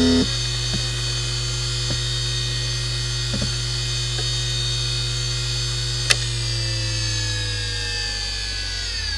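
Seagate Barracuda 18XL ST318436LW 7,200 rpm SCSI hard drive with its steady ball-bearing whine, a brief loud buzz right at the start and a few light ticks while it idles. About six seconds in there is a sharp click, and the whine then falls steadily in pitch as the platters spin down.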